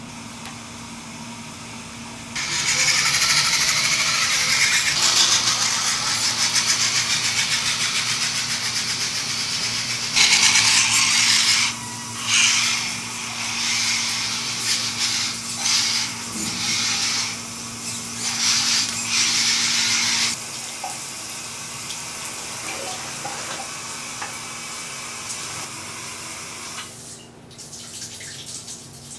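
Shower spray running: a loud hiss of water starts about two seconds in, turns choppy and uneven from about ten seconds, and falls away at about twenty seconds, over a steady low hum.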